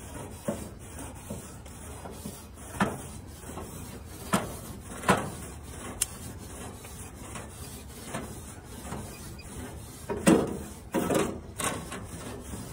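Scraping and rubbing on the metal grates of a lit gas grill, in short irregular strokes, with a heavier cluster of strokes about ten seconds in.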